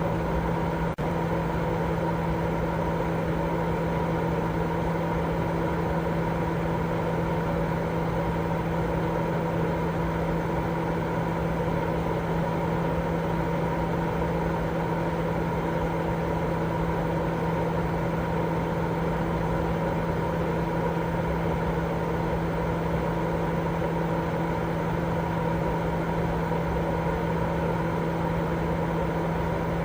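Continuous white noise for baby sleep: an even, unchanging hiss with a steady low hum running through it, and a brief dip about a second in.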